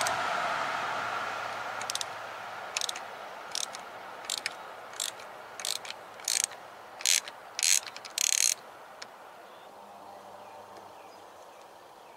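Ratchet wrench clicking in about ten short rasps, roughly two-thirds of a second apart, growing louder and longer, as the temperature sender is backed out of a Mercury outboard's cylinder head. Then it stops.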